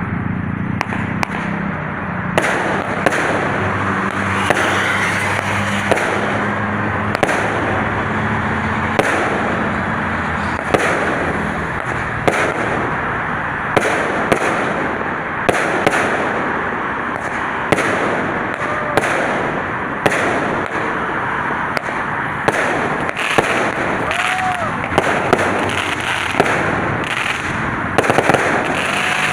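Fireworks going off in a continuous barrage: sharp bangs about every second or two over a dense crackle.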